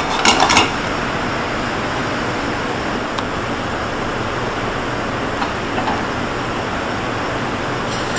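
Steady rushing noise from a commercial kitchen's gas range, its burners lit under frying pans. There is a brief clatter about half a second in.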